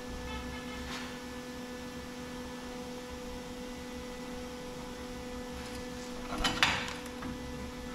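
A steady electrical hum, with a short, sudden burst of noise about six and a half seconds in.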